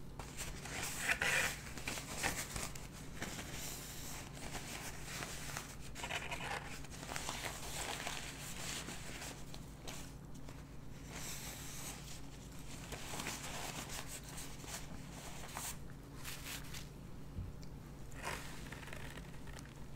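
A paper napkin rustling and crinkling in the hands as it is pulled out, handled and folded, in irregular bursts, the loudest about a second in, over a steady low hum.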